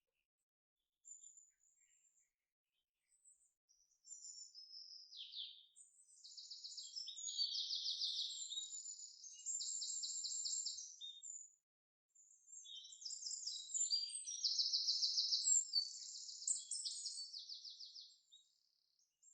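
A small songbird singing: two long, high-pitched songs made of fast trills and chirps. The first begins about four seconds in, and the second follows a short pause about twelve seconds in.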